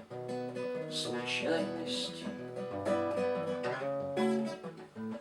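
Acoustic guitar playing chords, with a man singing the closing word of a chorus, 'случайности', about two seconds in.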